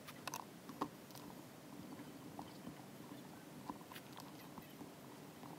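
Faint scattered clicks and crackles of fingers picking dried hot glue off a tiny receiver circuit board and its antenna wires, several in the first second and a few more about four seconds in.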